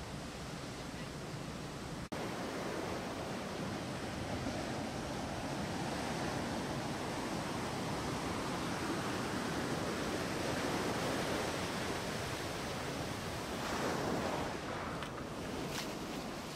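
High surf breaking on a beach: a steady rush of waves and foam, which cuts out for an instant about two seconds in and swells briefly around fourteen seconds in.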